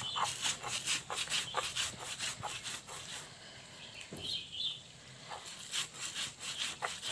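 Stone roller of a sil-batta scraping and crushing fried onion on a flat stone grinding slab: repeated rasping strokes of stone on stone, several a second, as the onion is worked into a paste.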